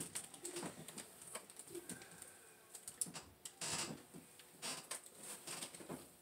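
Faint, irregular crinkling and light taps of plastic wrapping and parts being handled in a cardboard box.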